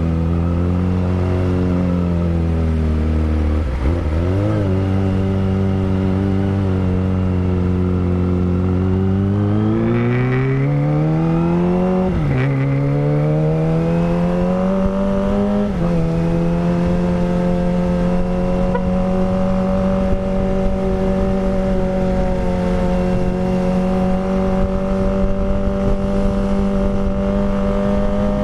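Kawasaki ZX25R's 250 cc inline-four, breathing through a Villan Pro 1 full-system exhaust, running at a steady low pitch. About ten seconds in it climbs in revs, drops sharply on an upshift, climbs again, shifts once more, then holds a steady higher note.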